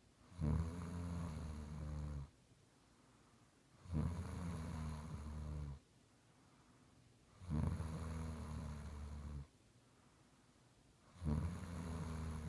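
Snoring: long, low snores of about two seconds each, coming about every three and a half seconds with quiet gaps between, the fourth starting near the end.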